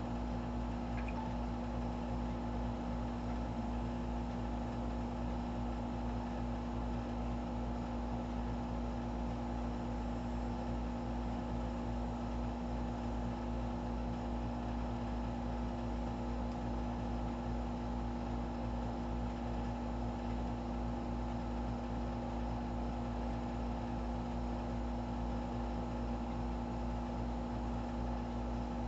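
A steady machine hum made of several constant tones over an even noise, with no change in level or pitch.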